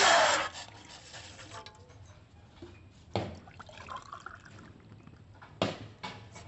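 Water being poured from a glass into a vessel, ending about half a second in, followed by faint handling noises and two brief knocks.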